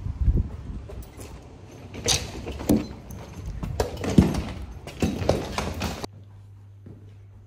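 Handling noise on a hand-held phone with a low rumble and several knocks and bumps, then about six seconds in an abrupt switch to a quiet room with a faint low steady hum.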